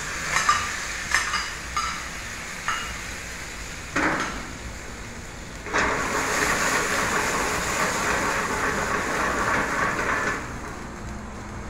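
Mixed seafood searing in a very hot buttered frying pan over a high gas flame: a few clinks of a utensil against the bowl and pan at the start, a surge of sizzling about four seconds in, then a loud steady sizzle from about six seconds in that drops off near the end. The seafood is being briefly seared to seal it, not cooked through.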